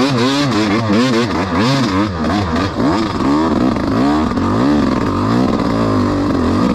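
Yamaha enduro dirt bike engine revved in quick, repeated throttle blips, its pitch rising and falling two or three times a second as the bike works along a rough trail.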